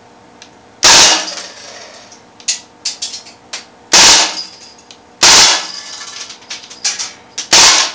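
Crosman AK1 CO2 BB rifle firing on full auto in four loud, short bursts, with the gas blowback action cycling. Lighter sharp clicks and clanks come between the bursts as BBs strike the pellet trap.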